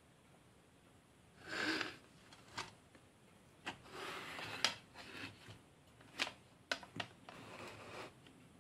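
Plastic housing of a small bathroom extractor fan being handled and turned over by hand: a handful of light plastic clicks and knocks with brief rustling in between.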